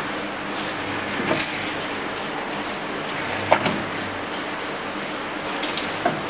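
Coffee capsule sealing machine running with a steady low hum, punctuated by three sharp mechanical knocks from its sealing press and tray mechanism.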